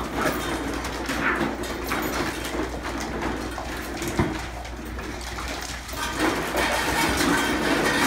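Young terrier puppies vocalising as they play together, with a single sharp knock about four seconds in.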